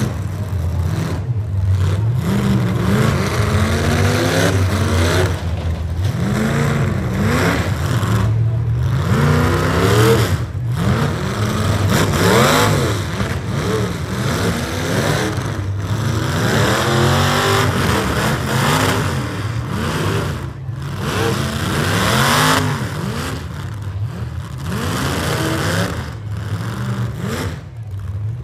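Economy-class demolition derby cars' V8 engines revving hard over and over, several at once, their pitch rising and falling as the cars ram and push.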